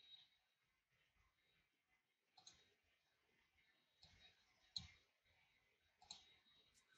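Near silence with a few faint computer mouse clicks, the clearest about five seconds in.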